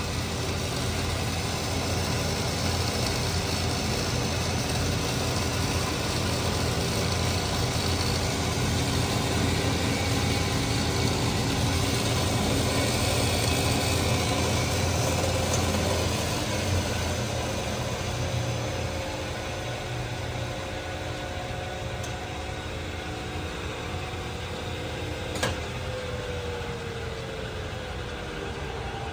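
Hardinge HL-BK toolroom lathe's headstock spindle running under power, a steady mechanical hum with several whining tones. About three-quarters of the way in there is a single click, and then a tone slowly falls in pitch.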